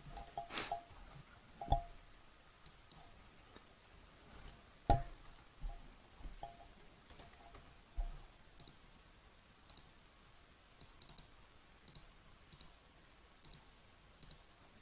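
Computer mouse clicking: several sharp clicks in the first eight seconds, the loudest about five seconds in, then only faint light ticks.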